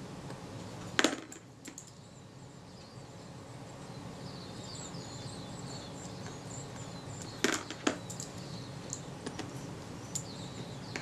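Small, sharp metal clicks as tweezers and a tiny screw tap against the Kodak Retina-Xenar lens's metal focusing mount: one louder click about a second in and a quick pair about seven and a half seconds in, with a few lighter ticks, over a faint steady hum.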